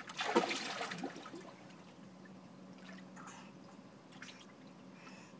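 Pool water sloshing and dripping as someone moves at the pool's edge. It is loudest in about the first second, then drops to faint trickling and lapping.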